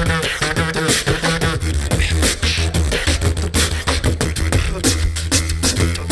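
Beatbox duo performing live: a held, deep vocal bass line under rapid kick and snare clicks, with a warbling pitched vocal effect in the first second and a half.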